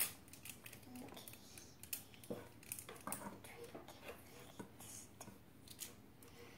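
Faint scattered clinks and taps of glassware being handled on a table: a glass mug picked up and set against a shallow glass dish.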